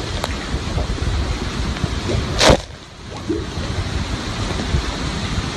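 Hurricane Irma's wind and driving rain: a steady, loud roar of noise. About halfway through there is one sharp, loud burst, followed by a brief dip before the roar comes back.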